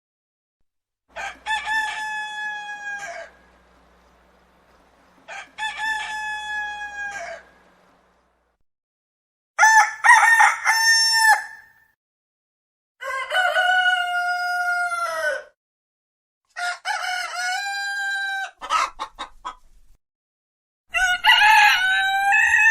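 Roosters crowing one after another: six separate cock-a-doodle-doo crows, each about two seconds long, with a silent pause between them. Some crows are higher-pitched than others, and the fifth ends in a stuttering tail.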